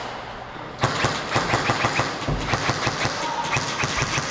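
Airsoft guns firing rapid strings of shots at several a second, starting with a sharp crack about a second in.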